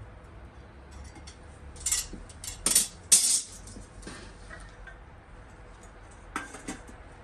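Metallic clinking: a quick run of sharp metal-on-metal strikes and jingles in the middle, two more near the end, over a low steady rumble.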